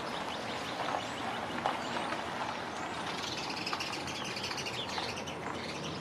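Outdoor ambience: a steady rush of traffic noise with small birds chirping over it, the chirping growing busier in the second half.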